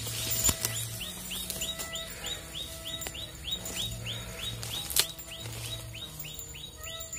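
Background music of held low notes under a fast, even run of short high chirps, about four a second. A sharp click about five seconds in is the loudest moment.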